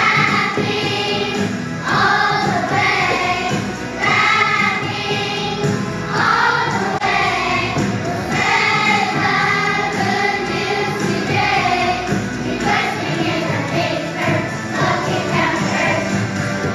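A children's choir singing together over instrumental accompaniment, in phrases about two seconds long.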